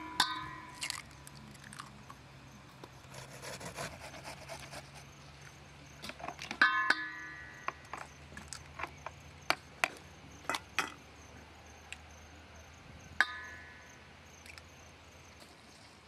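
Kitchen utensils knocking and clicking during food preparation. Three metallic strikes ring briefly like a steel mixing bowl being hit, near the start, about seven seconds in and about thirteen seconds in; the middle one is the loudest. Sharper taps fall in between.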